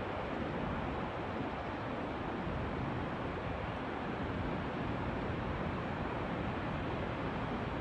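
Large oil refinery fire burning at a distance: a steady, even rushing noise with no bangs or separate events.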